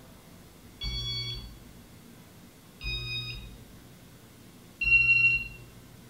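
Three short electronic beeps from a Casablanca Ventura II ceiling fan's Inteli•Touch control, about two seconds apart, each with a low hum under it; the last beep is the loudest and a little different in pitch.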